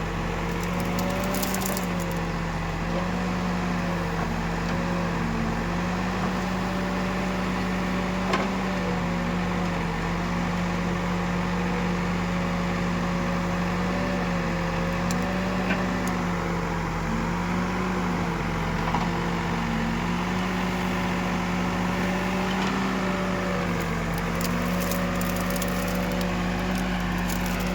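Diesel engine of an Escorts Digmax backhoe loader running steadily at work, its pitch dipping briefly every few seconds as it takes load, with a few faint clicks and knocks.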